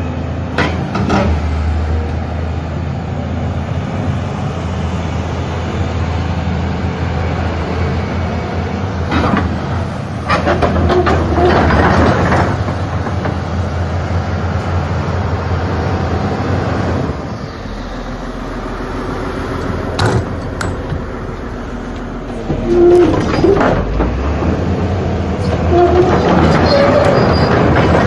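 Large crawler excavator working: its diesel engine runs with a steady low hum, and clanks and knocks come from the steel tracks and boom. The engine note drops and quietens about two-thirds of the way through, then the working noise grows loud again near the end.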